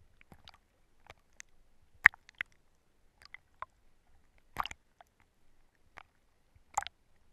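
Water slapping and bubbling against a GoPro's waterproof housing at the surface: scattered, irregular wet pops and clicks, the loudest about two seconds in, about halfway, and near the end.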